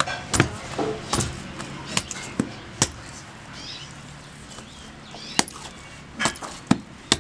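Stiff urad dal dough being pounded on a grooved stone pata with a stone varvanta. It gives irregular sharp knocks, about ten, with a pause of a couple of seconds in the middle.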